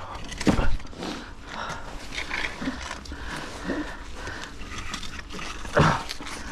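Rusty scrap being pulled off a fishing magnet by gloved hands over a plastic bag: irregular metal clinks and plastic rustling, with two louder knocks about half a second in and near the end.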